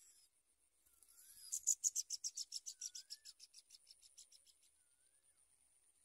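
Bar-winged prinia nestlings begging: a rapid, even series of high thin chirps, about eight a second, starting a second and a half in and fading out over about three seconds. A fainter whistle that rises then falls repeats about every two seconds.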